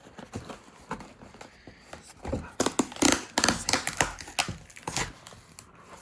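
A box being worked open by hand: a run of scrapes, crinkles and sharp clicks, sparse at first and busiest in the second half.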